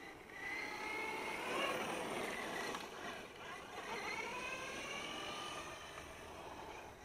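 Brushless 4350kV electric motor of an FTX Carnage 2.0 RC truck whining as it speeds up and slows, the pitch rising and falling twice, over the hiss of its tyres on asphalt.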